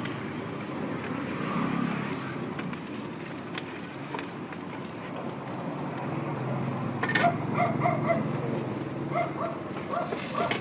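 Metal spatula scraping and clicking against a large wok of frying noodles, over a steady hum of street traffic. Voices are heard in the last few seconds.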